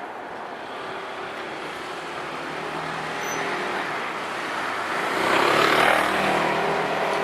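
Road traffic moving over a level crossing: cars running past, with one vehicle passing close and loudest about five to six seconds in.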